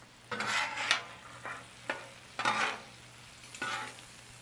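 Metal spatula scraping across the steel cooktop of a Royal Gourmet gas griddle, turning small scallops that sizzle in butter; four scraping strokes about a second apart.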